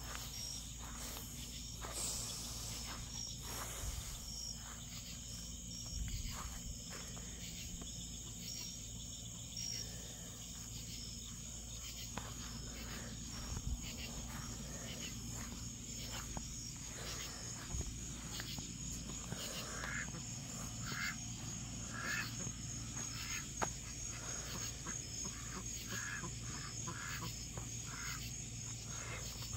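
Crickets chirping in a steady, continuous high trill. Scattered faint clicks and a run of short, lower calls join in during the second half.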